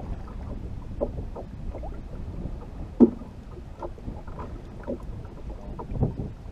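Small waves lapping and slapping against the hull of a drifting boat, with wind rumbling on the microphone. A single sharp knock comes about three seconds in.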